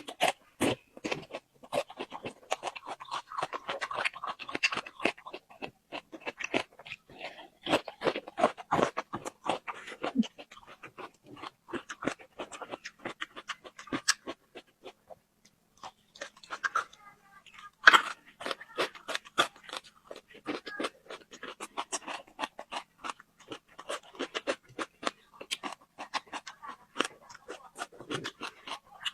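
A person chewing and biting crunchy food close to the microphone: a dense run of crisp crunches, with a short pause a little past halfway through.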